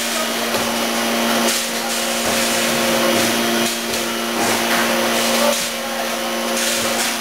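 Horizontal form-fill-seal packaging machine running: a steady hum with a brighter hiss that swells every second or two as it cycles.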